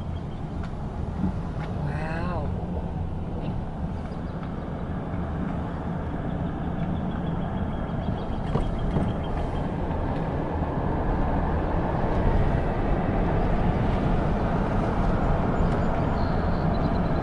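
Car driving along a road, heard from inside: steady low engine and tyre rumble that grows a little louder in the second half. A brief wavering high sound comes about two seconds in.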